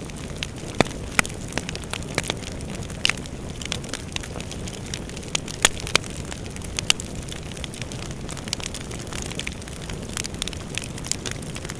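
Bonfire burning, with irregular sharp crackles and pops of burning wood over a steady low rush of flames.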